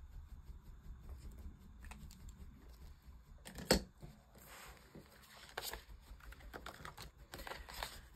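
Light desk-top handling: small clicks and scratches of a pen colouring in a paper savings-tracker card, one sharp knock a little before halfway, then brief rustling as a binder and plastic cash envelope are handled.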